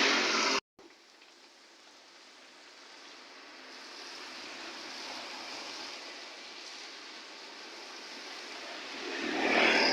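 Steady hiss of falling rain, broken by a brief dropout early on, with a louder rushing noise building near the end.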